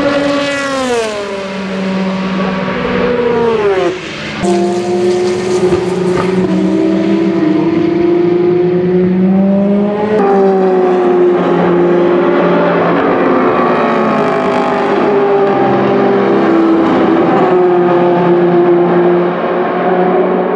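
Audi R18 e-tron quattro's 4.0-litre 120° V6 TDI diesel race engine. First a car slows for a corner, its engine note falling. After a cut about four seconds in, cars run past under power with a steadier, slowly rising note, and there is another cut about ten seconds in.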